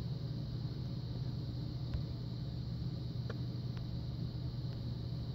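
Steady low background hum with a few faint, light clicks.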